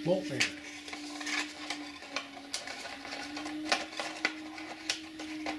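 A small plastic multimeter and its packaging being handled: scattered light clicks and rustling at irregular intervals, over a steady low hum.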